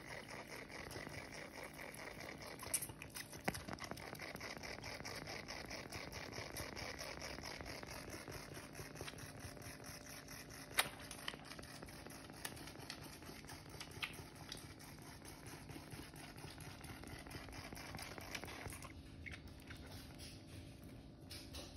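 Goat kid suckling milk from a baby-bottle nipple: faint, rhythmic sucking, with a few sharper clicks.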